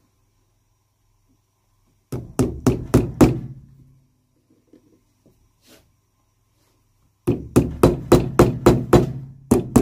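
Cobbler's hammer driving nails into a new leather shoe sole: a quick run of five blows about two seconds in, then, after a pause, a longer run of about ten, about four blows a second.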